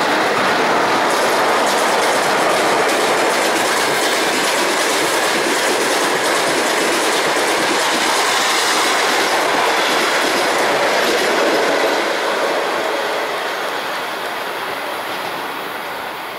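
Passenger train hauled by a ChS2K DC electric locomotive passing close by: a loud, steady rush of coach wheels running on the rails. The sound fades from about twelve seconds in as the tail of the train pulls away.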